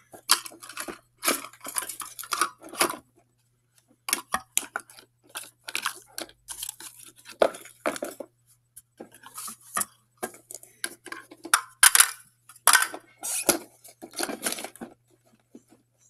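Plastic clicking and clattering from a toy garbage truck and its small plastic bins being handled and moved about, in irregular spells with short pauses.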